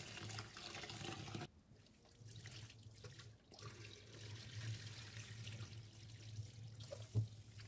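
Faint running tap water and splashing as rice is swished by hand in a pot to wash it, then the cloudy rinse water is poured off into a stainless steel sink. The sound drops abruptly about a second and a half in, and a short click comes near the end.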